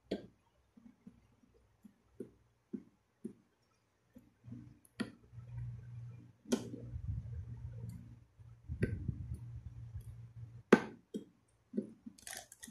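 Hand screwdriver driving a screw into a plastic toilet cistern: scattered clicks and knocks of the tool against the plastic, with a low steady rubbing noise through the middle.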